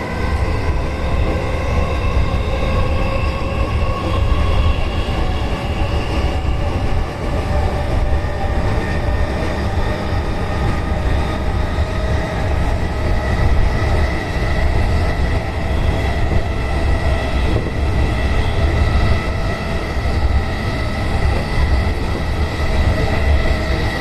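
Electric commuter train running between stations: a steady low rumble of wheels on track with a constant whine of several tones from the traction motors.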